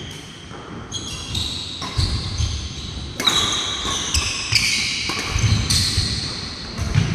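Athletic shoes squeaking sharply on the court floor again and again as badminton doubles players move in a rally, with thudding footsteps and the sharp taps of rackets hitting a nylon shuttlecock.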